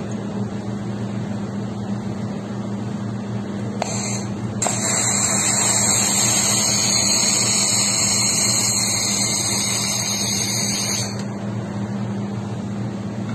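Handheld fiber laser welder working a brass seam: a short hiss about four seconds in, then a louder steady hiss with a high whine from about five to eleven seconds in. Under it, the welding machine's steady low hum.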